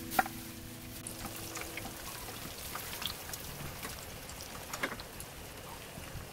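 Breaded menchi katsu patties deep-frying in hot oil: a steady sizzle with scattered pops and crackles, and a short cluster of louder pops about five seconds in.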